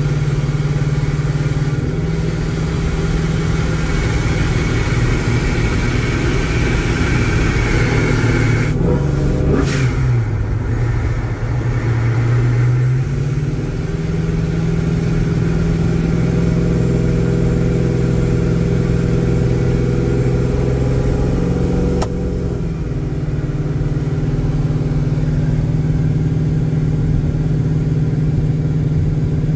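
Torqstorm-supercharged 5.7 Hemi V8 of a RAM 1500 R/T heard from inside the cab, running steadily while driving at light throttle. The engine pitch dips about ten seconds in and climbs back a few seconds later, and there is another brief dip with a click around twenty-two seconds.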